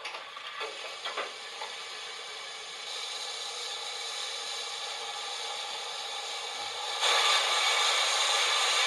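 Model class 94 steam locomotive's sound decoder playing standing-steam-engine sounds: a few metallic clanks, then a steady steam hiss that turns markedly louder about seven seconds in.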